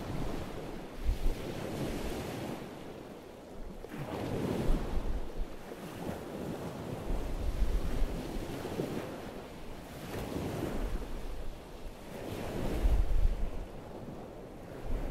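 Wind buffeting the microphone over the wash of sea waves, surging and easing every few seconds, with low rumbling gusts.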